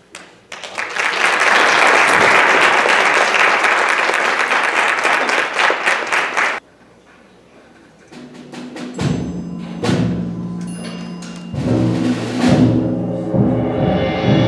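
School concert band: a loud, dense rattling percussion roll that stops abruptly about six and a half seconds in, a short pause, then low brass and woodwind chords with drum strokes, growing fuller near the end.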